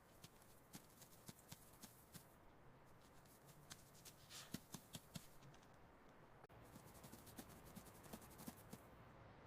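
Faint, irregular scratching and light clicking of a mouse scurrying, heard over low background hiss.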